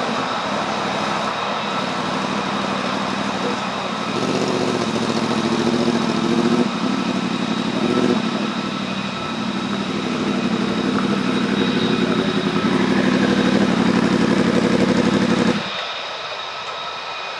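Lockheed Martin F-35A's single Pratt & Whitney F135 turbofan while taxiing: a steady jet whine over a deep rumble. Near the end the rumble drops away suddenly, leaving the lighter whine.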